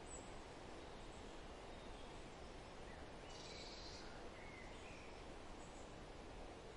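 Faint, steady outdoor background noise with a few faint bird chirps about halfway through.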